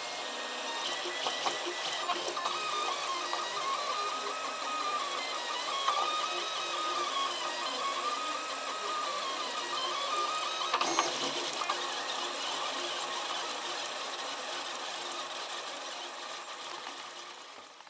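3D printer running a print: the stepper motors whine in repeated rising and falling tones as the print head moves, with a few clicks. The sound fades out near the end.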